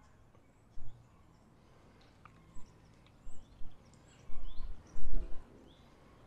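Short gusts of wind buffeting the microphone in low rumbles, the strongest about four to five seconds in, with faint birds chirping in the background.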